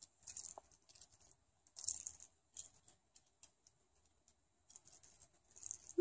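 Small metal bells on a hanging budgie toy jingling in several short bursts as the budgie swings on it.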